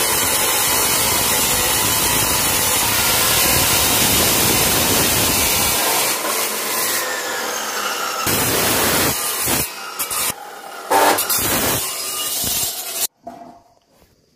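DeWalt abrasive chop saw cutting through mild steel rectangular tube: a loud, steady grinding of the cut-off wheel in the metal. After about six seconds it turns uneven, coming in spurts, and it stops abruptly near the end.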